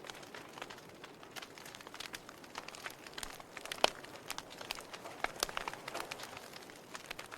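Wood fire in a fireplace crackling: irregular sharp pops and snaps over a soft hiss, with one louder pop about halfway through.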